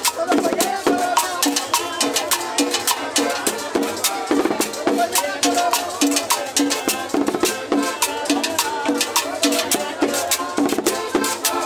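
Live cumbia played by a small street band, with percussion including a cymbal keeping a steady, quick beat.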